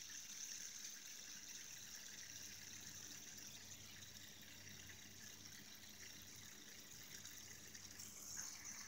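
Faint, steady high whir of a fidget spinner's bearing spinning between the fingers, growing louder again near the end.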